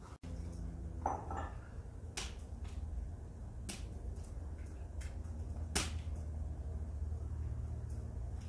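A pot of porridge being stirred with a wooden stick over a wood fire: a few sharp clicks, about three and well spaced, over a steady low rumble.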